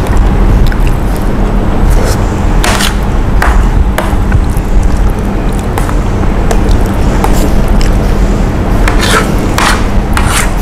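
Eating sounds from a big plate of curry rice: short scrapes and clinks of spoons on plates at irregular moments, a cluster about three seconds in and another near the end, over a steady low rumble.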